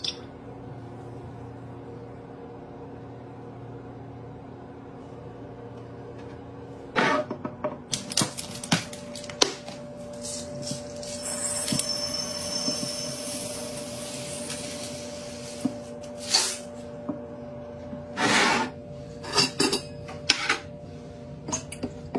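Small blue laundry beads poured from a bottle into a glass carafe, a rattling, hissing stream for about four seconds near the middle. Around it come scattered clinks and knocks of plastic bottles and caps against glass, with a steady low hum underneath.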